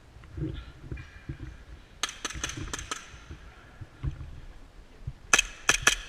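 Rapid shots from a gas blowback airsoft pistol (a WE Samurai Edge, M92-type) with sharp, ringing metallic clicks: about five fainter shots around two seconds in, then four louder shots in quick succession near the end.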